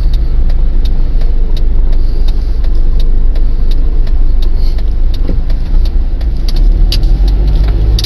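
Car heard from inside the cabin while driving: a steady low engine and road rumble, with many faint light clicks over it.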